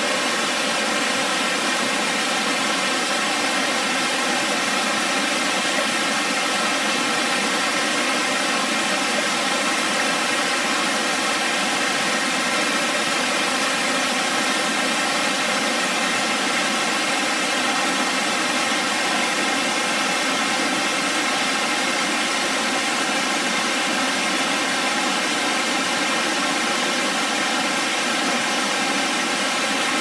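Steady rushing roar of Purakaunui Falls, a three-tiered cascading waterfall, an even noise that does not change.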